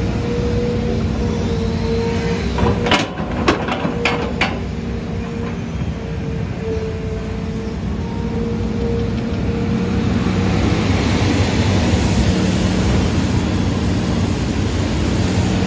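Hitachi Zaxis excavator running steadily, a low engine hum under a held whining tone. About four sharp knocks come close together a few seconds in, and a broad hiss builds up over the last third.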